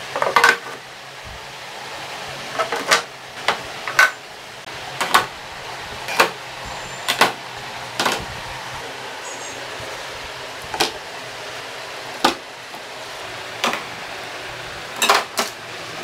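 Bottles and containers being set down one by one into a vanity drawer: a string of short knocks and clicks at irregular intervals, some in quick pairs.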